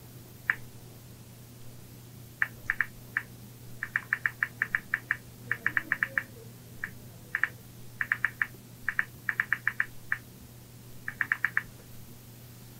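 iPhone keyboard clicks as a text message is typed: short, crisp ticks coming in quick bursts of several a second, with short pauses between bursts.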